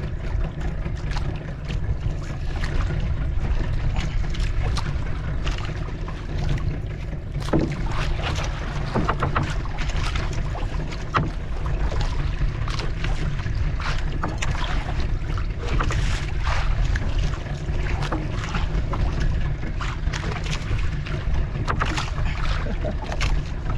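Steady low rumble of a small fishing boat at sea, with many short clicks and slaps scattered through it.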